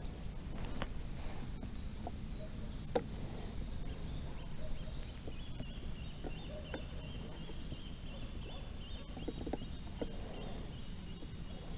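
Quiet lakeside ambience: a low steady background noise with faint bird calls and a few soft clicks, the clearest about three seconds in.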